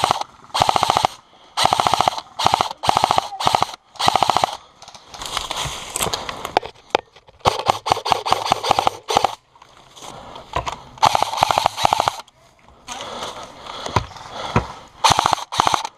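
Airsoft rifles firing in full-auto bursts: many short strings of rapid, evenly spaced shots, with one longer string of fire about halfway through.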